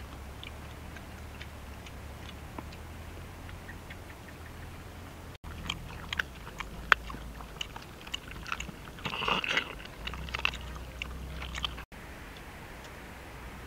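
Dogs eating cooked chicken pieces off a leaf: chewing and crunching with many sharp clicks, busiest from about halfway through, then quieter near the end.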